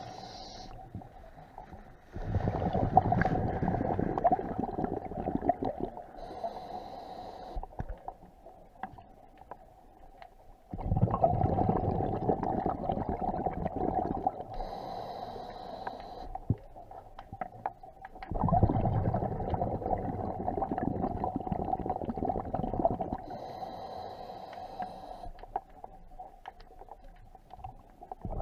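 Scuba diver breathing through a regulator, heard underwater: a loud rumble of exhaled bubbles lasting a few seconds, then a short hiss of inhaling through the regulator. The cycle repeats about every eight seconds, three times.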